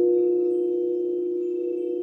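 Frosted quartz crystal singing bowls ringing together in two steady sustained tones, one lower and one a little higher, with faint high overtones joining shortly after the start; the sound eases slightly in level.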